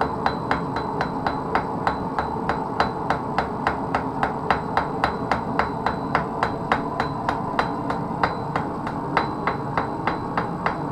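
Blacksmith's hand hammer striking metal on an anvil in a steady, even rhythm of about three to four blows a second, over steady background noise.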